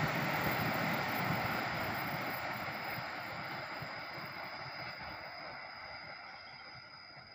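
Rolling noise of a passenger train's wheels on the rails, fading steadily as the train recedes into the distance. A high, steady insect whine comes through as it dies away near the end.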